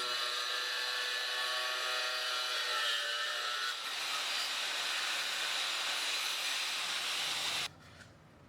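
Electric angle grinder running under load, a steady high hiss of cutting with a motor whine whose pitch shifts a little partway through; it stops abruptly near the end.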